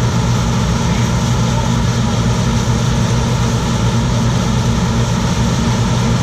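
John Deere 7720 combine running steadily while threshing, its diesel engine and separator machinery making a constant low drone.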